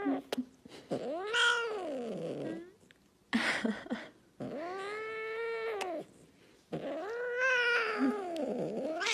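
A cat yowling: three long, drawn-out calls, each rising and then falling in pitch, with a short rough sound between the first two.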